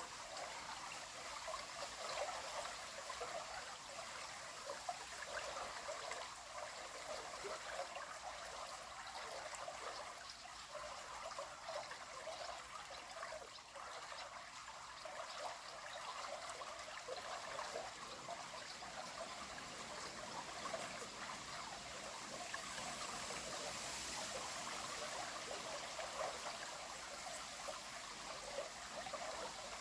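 River water flowing and trickling steadily, an even rushing babble with no breaks.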